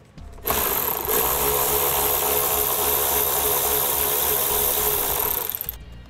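Cordless power driver running steadily for about five seconds, spinning an 8 mm nut off a taillight mounting stud; it starts about half a second in and winds down near the end.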